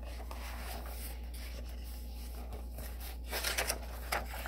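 A picture book's page being turned, a brief paper rustle a little over three seconds in, over a steady low hum.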